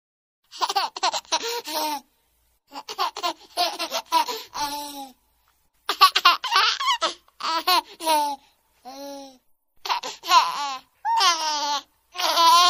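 Laughter in a string of high-pitched bursts, each under a second or so long, with short silent gaps between them.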